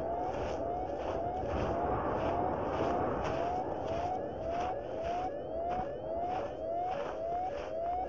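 Electronic soundtrack: a steady noisy hiss with a short rising synthetic tone repeating about every two-thirds of a second, over an even pulsing rhythm.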